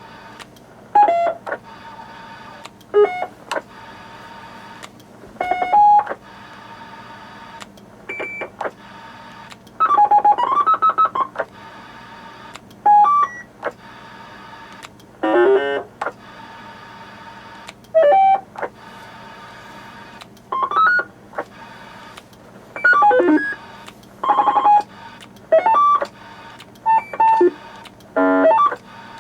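CB noise toy box playing a run of roger beeps one after another: short electronic tone sequences and chirps, some rising in pitch, about one every second or two, over a low steady hum.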